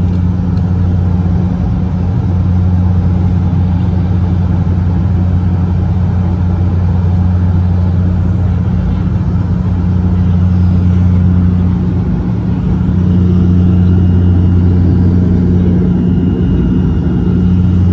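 Cabin drone of a Dash 8-400's two Pratt & Whitney PW150A turboprops and six-blade propellers in climb, heard from inside the cabin. It is a loud, steady low hum with a deeper and a higher tone held constant, over a broad rushing noise.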